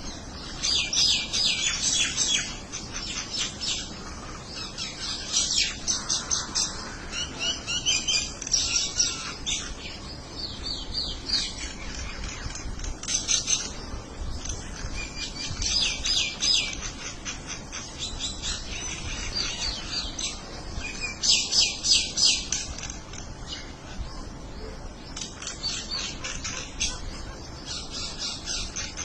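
Small birds chirping back and forth in quick runs of high, rapid chirps, a fresh burst every few seconds.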